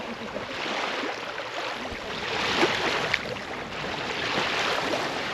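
Small waves lapping on a lake's pebbly shore, with water swishing around someone sitting in the shallows; the sound swells and eases every couple of seconds.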